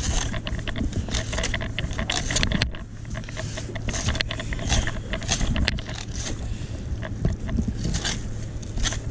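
Fillet knife cutting along a tautog's backbone and ribs: many quick scraping, crunching strokes, over a steady low hum.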